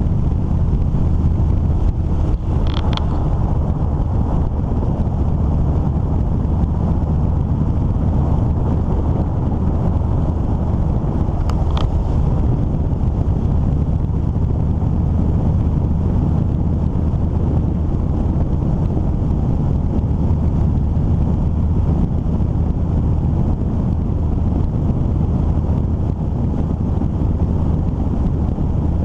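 Steady wind rush on the microphone over the low, even drone of a vehicle driving along at speed. Two brief high chirps come through, about three seconds in and again about twelve seconds in.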